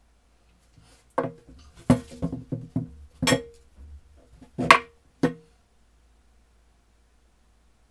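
Metal parts of an old Venusberg breast drill clinking and knocking as the drill is handled and its crank arm taken off. A run of light clinks starts about a second in, and sharper clanks that ring briefly come around three and nearly five seconds in.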